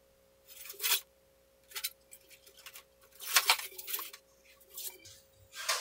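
Styrofoam packing being pulled and broken away from a band saw: a handful of short scraping, rubbing noises about a second apart, over a faint steady hum.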